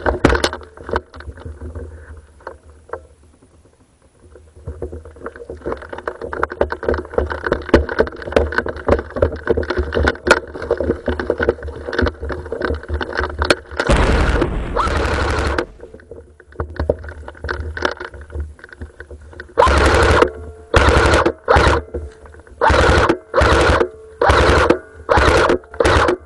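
Airsoft guns firing: a spread of rapid shots and clicks, one long full-auto burst in the middle, then a run of about eight short full-auto bursts near the end.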